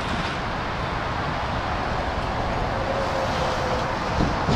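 Steady rumble of a demolition site at a distance, with heavy machinery working the rubble and wind on the microphone. A faint whine is held for about a second in the middle, and a couple of knocks come near the end.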